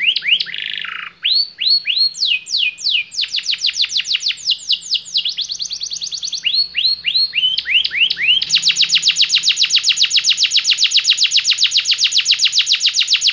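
Domestic canary singing: quick runs of rising whistled notes, the phrase changing every second or so, then about two-thirds of the way in a long, fast, even trill, the roll.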